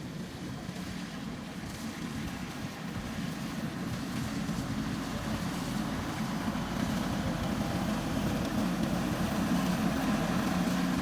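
Rice combine harvester engine running steadily, slowly growing louder.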